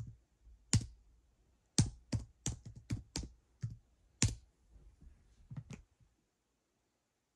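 Keyboard typing: about ten irregularly spaced keystrokes that stop about six seconds in.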